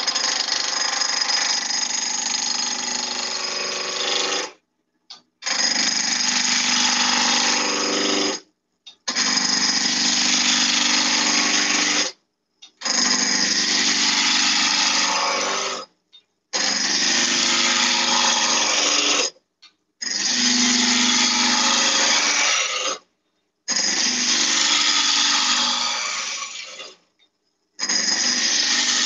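A 19 mm roughing gouge cutting a spinning beech blank on a wood lathe, rounding it down. The cutting comes in about eight passes of three to four seconds each, broken off abruptly by short silences.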